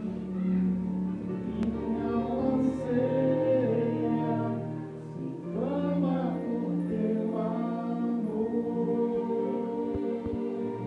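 A group of voices singing a gospel song in harmony, with long held notes over sustained chords.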